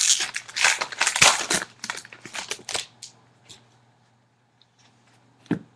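Trading card box packaging crinkling and tearing as it is opened, dense crackling for about three seconds, then a few light ticks and one sharp click near the end.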